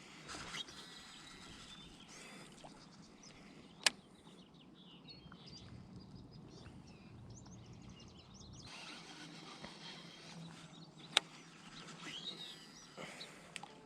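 Quiet outdoor pond-side ambience with birds chirping now and then, and two sharp clicks, about four seconds in and again near eleven seconds.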